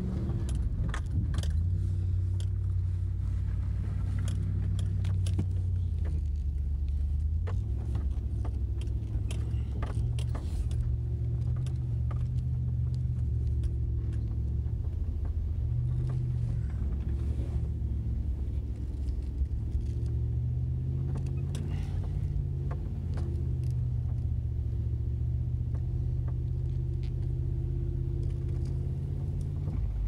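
A first-generation Toyota Tundra on studded Nokian Hakkapeliitta tyres, heard from inside the cab while it drives slowly through packed snow. The low drone of engine and tyres rises and falls in pitch several times as the truck speeds up and slows, with scattered clicks and rattles on top.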